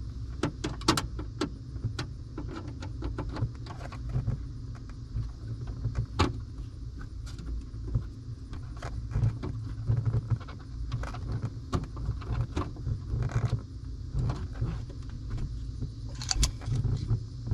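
Irregular metallic clicks and taps of a screwdriver working at a screw in a cramped spot, over a low steady rumble.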